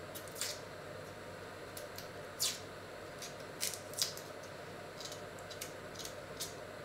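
Small kitchen knife peeling an onion: irregular crisp snips and scrapes as the blade cuts and pulls off the dry papery skin, several of them louder in the middle, over a faint steady room hum.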